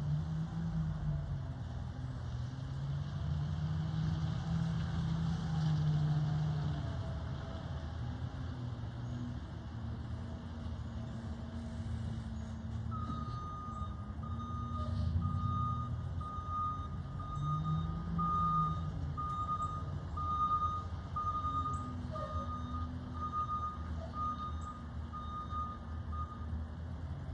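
Garbage truck's diesel engine running, its pitch rising and falling as it revs and manoeuvres. About halfway through, the truck's reverse alarm starts a steady string of beeps, roughly one a second, as it backs up, and stops just before the end.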